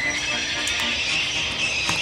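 Background music with a steady hiss laid over it.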